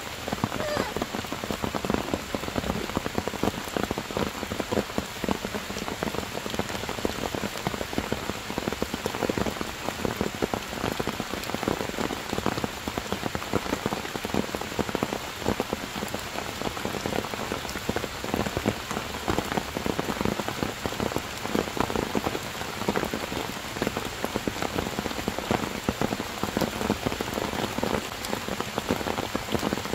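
Heavy rain falling steadily, a dense even hiss made of countless small drop impacts on wet stone and foliage.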